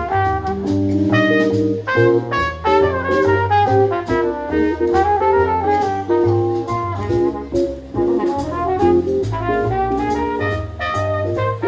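Live small-combo jazz: a brass horn plays the melody lines over upright double bass, electric guitar, keyboard and drums, with cymbal strokes keeping a steady beat.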